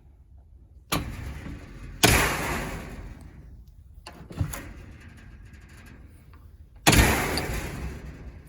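Metal security door banging shut, four times, each bang followed by a rattling ring that fades; the loudest about two seconds in and near the end.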